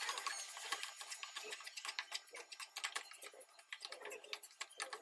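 Wooden spatula scraping and knocking against a nonstick pan as crumbly mawa (khoa) is stirred and roasted: a quiet, irregular run of quick clicks and scrapes, several a second.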